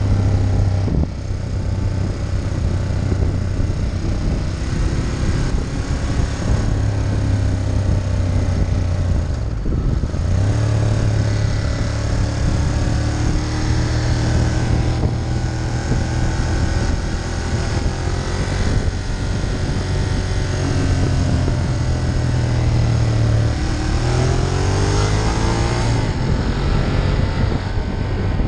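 Ducati Monster 1200's L-twin engine running at road speed under the rider, with wind rushing over the microphone. The engine note dips briefly about a second in and again around ten seconds in, then climbs in pitch near the end as the bike accelerates.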